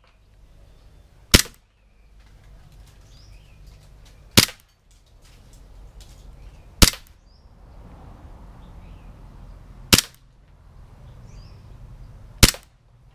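Green-gas Glock 17 Gen3 airsoft pistol firing single shots: five sharp cracks, a few seconds apart.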